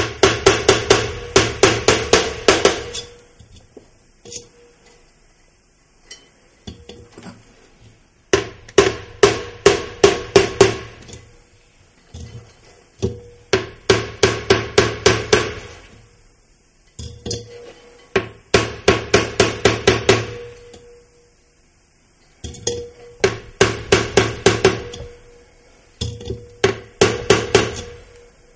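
Hammer tapping on a steel driving block to seat a new radial shaft seal into a brake drum's wheel hub, lightly and without force. Six runs of quick strikes, about five a second, come with pauses of a few seconds between them, and each strike has a short metallic ring.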